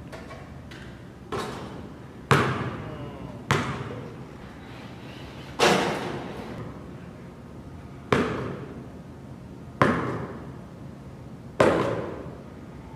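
A basketball banging on the hardwood court and off the hoop: seven sharp knocks, irregularly one to two and a half seconds apart, each echoing in a large empty gym.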